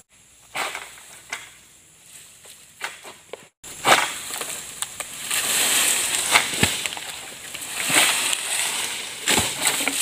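Pole-mounted oil palm harvesting sickle (SBL M222A) cutting into a palm's frond and bunch stalks high in the crown: rasping, crackling strokes with rustling fronds and several sharp cracks, louder after a brief dropout about three and a half seconds in. Insects buzz faintly beneath.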